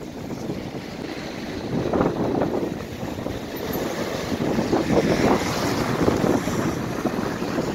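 A lorry and then a car drive past on a wet road, their tyres hissing, with wind gusting on the microphone.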